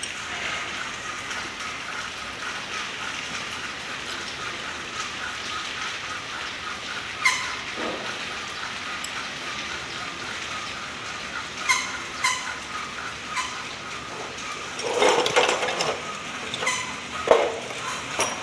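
Sharp metal clicks and clinks of an L-shaped hex key working the bolts of a forklift torque converter's cast housing: single clicks now and then, a quick cluster about fifteen seconds in and a few more near the end. A steady hiss lies under them.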